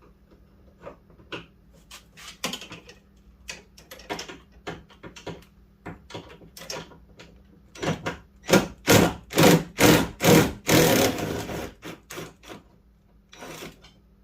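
Hand tools working on the door handle's fastenings inside a car door: scattered clicks and knocks, then a quick run of about a dozen loud strokes from about eight seconds in, ending in a longer rasping one.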